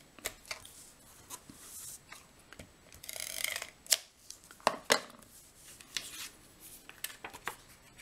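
A handheld tape runner laying adhesive on a cardstock panel: two short rasping strokes about two and three seconds in, among scattered clicks and taps as the runner and card are handled.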